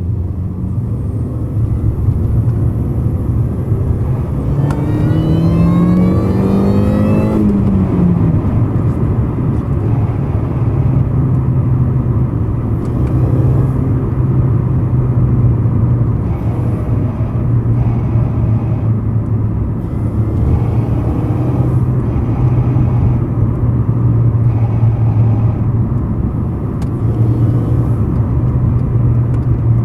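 Mini Cooper S driving with a steady low drone from the engine and drivetrain; the engine revs rise about five seconds in, drop back about three seconds later, then hold steady. The owner reports a grinding noise from the front left at around 3,000 rpm in third gear and up, which is what this recording is meant to capture.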